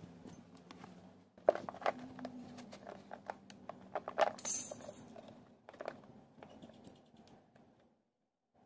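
A fiberglass fairing shell being flexed and peeled away from its mold by hand: irregular clicks, snaps and crackles as the laminate separates, with a sharp snap about a second and a half in and a burst of crackling around four seconds.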